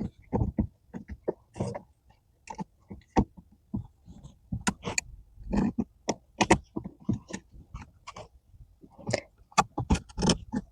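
Brake pedal cover being worked by hand over a car's brake pedal: irregular scraping, squeaks and small knocks as its lip is pulled and pushed over the pedal's edges.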